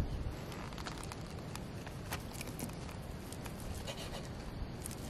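A folding knife slicing through a Korean blood sausage on a wooden cutting board, with scattered light taps and scrapes as the blade meets the board, over a steady low rumble.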